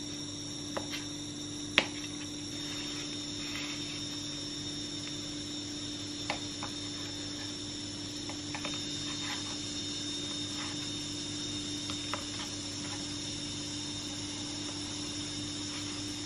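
A small knife slicing hot-dog sausages on a plastic cutting board: a few scattered taps of the blade on the board, the loudest about two seconds in, over a steady hum.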